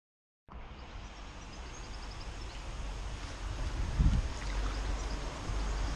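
Water sloshing and lapping around a landing net holding a pike at the canal edge, over a low rumble that slowly grows louder, with a dull thump about four seconds in. The sound cuts in suddenly about half a second in after silence.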